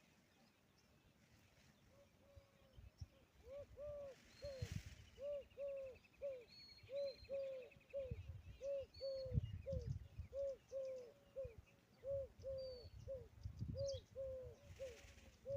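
Peahen calling: a long run of short, arching honks in pairs and threes, about two a second, starting about three seconds in. A smaller bird chirps and trills faintly above it.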